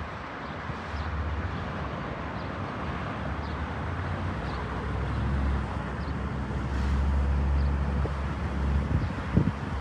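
Steady low rumble of engines outdoors, with a few light knocks near the end.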